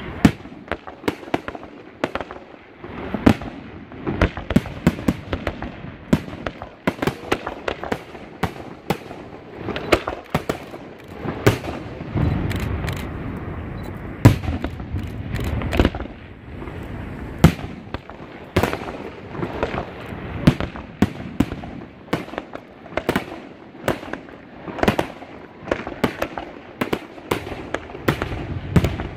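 Fireworks display: aerial shells bursting in quick succession, a long run of sharp bangs a fraction of a second to a second apart, with a denser, rumbling stretch near the middle.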